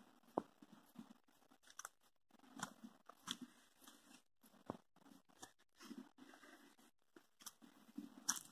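Faint footsteps crunching on dry autumn leaves and twigs: soft thuds about every half to three-quarters of a second, with scattered sharp cracks and clicks.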